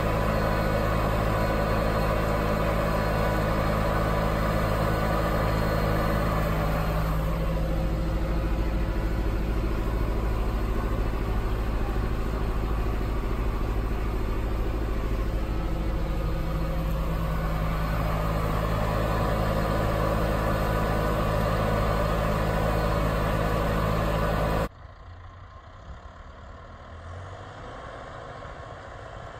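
John Deere 6430 tractor's diesel engine running steadily under load while pulling a plough through soil. About 25 seconds in it drops off suddenly to a much quieter hum.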